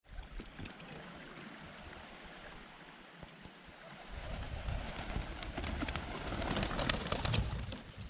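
A flock of domestic pigeons flying in close and landing: many wings flapping and clapping, building up from about halfway through and loudest just before the end.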